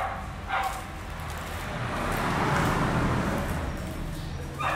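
Noise of a passing road vehicle that swells to a peak about halfway through and fades again, over a steady low hum.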